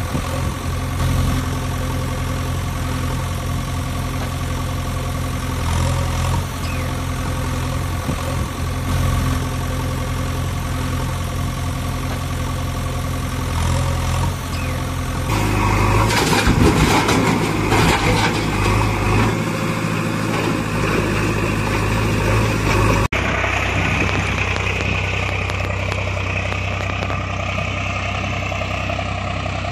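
Steady heavy engine idle laid over the toy machines as a sound effect. It switches abruptly to a different engine sound about halfway through and again about three-quarters through, with a rougher, noisier stretch after the first change.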